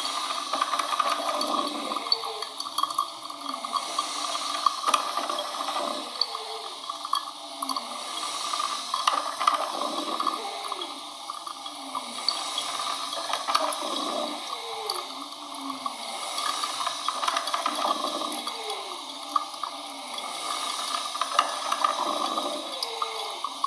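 Coffee machine running, its water sounds swelling and falling in a cycle about every two seconds, with scattered sharp clicks.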